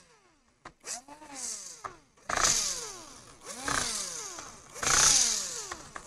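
Cordless drill-driver running in about five short bursts, the motor's pitch rising and then falling each time, as it drives in the screws that hold down a laptop's heatsink.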